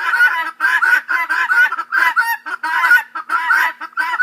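Helmeted guinea fowl calling: a rapid, harsh, repeated cackling chatter, several calls a second without pause.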